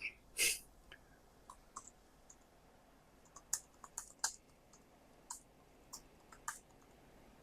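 Faint, sparse, irregular key clicks from the low-profile scissor-switch keys of a Clevetura compact wireless keyboard being typed on.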